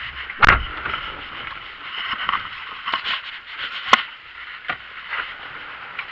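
Rustling and knocking inside a car as things are handled, with a heavy thump about half a second in and sharper knocks a few seconds later.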